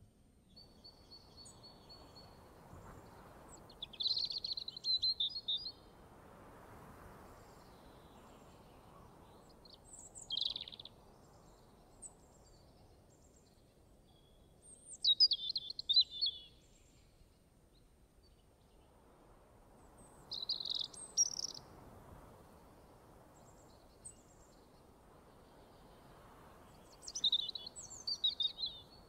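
Birds chirping in short, bright phrases every five seconds or so, over a soft rushing background that swells and fades: a nature-ambience soundtrack.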